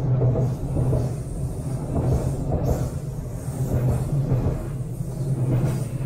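A train rumbling across the steel railway bridge overhead, heard from beneath it: a steady low rumble with uneven clatter on top.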